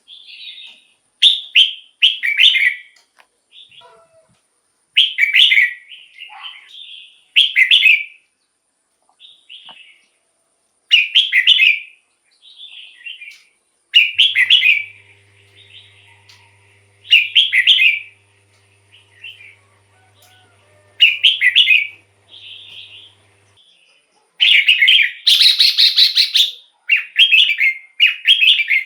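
Red-whiskered bulbul singing: short, loud, warbling phrases about every two to three seconds, with softer notes between them and a longer, fuller burst near the end.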